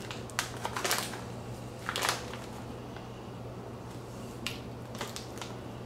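A snack bag crinkling as it is held to the face, with a couple of short sniffs into its opening, about one and two seconds in, and a few fainter rustles later, over a low steady hum.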